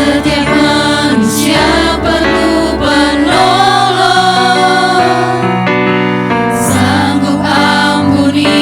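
A choir singing an Indonesian worship song in long held notes over steady instrumental accompaniment.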